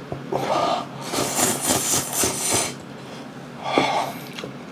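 Ramyun noodles slurped into the mouth in one long slurp of about a second and a half, with shorter noisy breaths before and after it.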